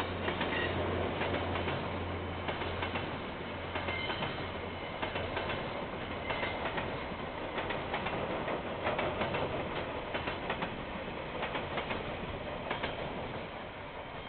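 Diesel-hauled container freight train passing: the locomotive's steady low engine hum fades out over the first four seconds or so, then the wagons roll by with a clickety-clack of wheels over rail joints, easing off near the end.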